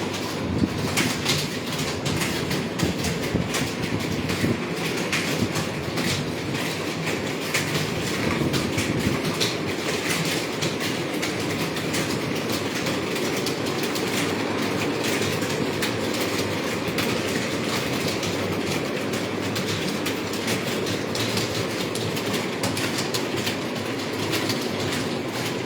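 Rapid, continuous typing on a computer keyboard: a dense, steady clatter of keystrokes.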